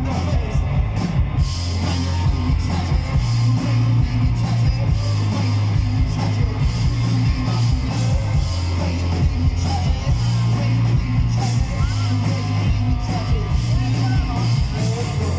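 Rock band playing live and loud: electric guitars and a drum kit, with a heavy, booming low end and steady drum and cymbal hits, heard from within the audience.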